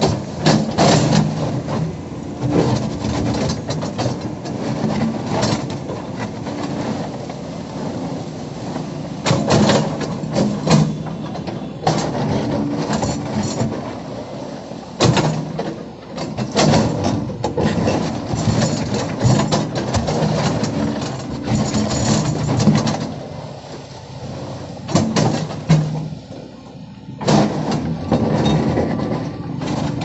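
Excavator's diesel engine working under load while its steel bucket scrapes and knocks against stones and soil as it digs a trench, with repeated sharp clanks over the engine hum.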